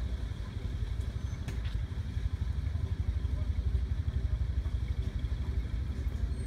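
Engine of a WWII Stuart light tank running with a low, rapid throb, a little louder from about two seconds in.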